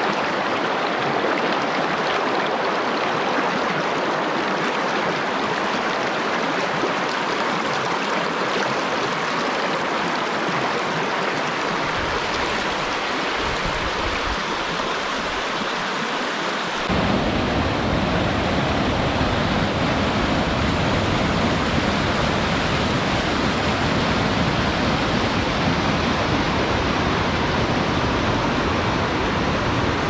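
Fast-flowing river rushing steadily. About halfway through, the sound turns suddenly louder and deeper.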